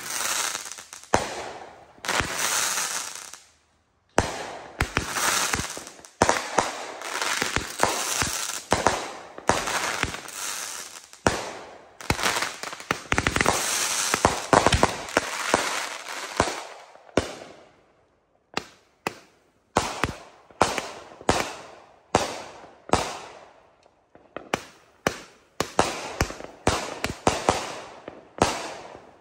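Consumer fireworks launching in quick succession, a rapid run of sharp launch thumps and aerial bangs with crackle. The shots come thick and almost continuous through the middle, then thin out to separate bangs about one or two a second near the end.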